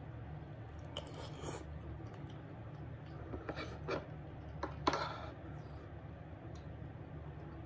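Spoon scraping and tapping against wooden bowls while scooping curry and rice, a few short scrapes and clicks about a second in and again between three and five seconds, with soft chewing, over a steady low hum.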